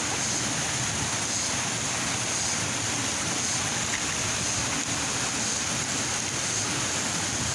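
Steady rushing of water in a rocky stream, an even noise that does not let up.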